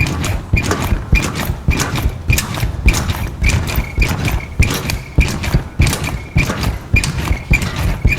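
Someone bouncing steadily on a mini-trampoline, about two bounces a second, each bounce a low thud with a short high squeak.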